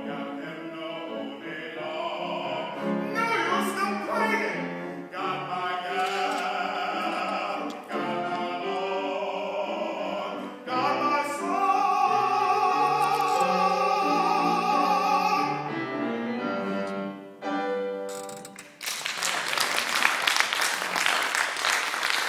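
A man singing in a classical, operatic voice with grand piano accompaniment, finishing the song on a long held note; the piano closes with a few chords, and the audience then applauds.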